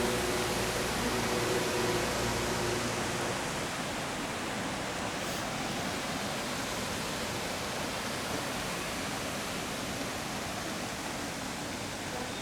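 Steady, even rushing noise with no distinct events. A faint low hum and a few steady tones sound under it for the first three seconds, then fade out.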